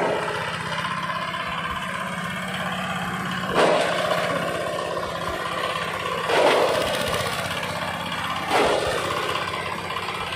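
Small crank-started engine driving a shredder, running steadily while it chops coconut husk into cocopeat. Three times the sound jumps louder for a moment as a batch of material hits the chopper.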